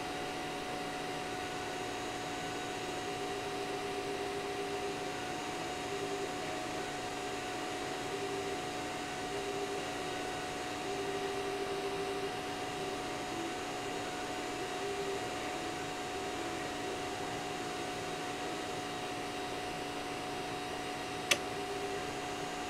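Laser engraver on a 3D-printer-type gantry running: a steady hum from the laser module's cooling fan and electronics, with the stepper motors sounding a lower tone in short stretches as they start and stop moving the head. A single sharp click near the end.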